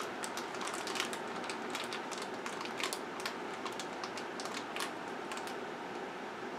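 Light, irregular clicks and taps of fingers squeezing and handling a small cardboard blind box with a figure inside, over a steady background hiss; the clicks thin out after about five seconds.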